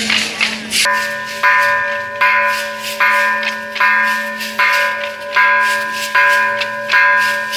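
A bell struck in a steady beat, roughly once every 0.8 s, about nine strokes starting just under a second in, each stroke ringing on, over a continuous fine rattling.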